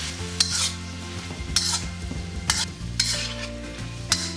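Metal spatula scraping and striking a wok as shrimp and pickled cucumbers are stir-fried, with five sharp scrapes over the steady sizzle of the hot pan.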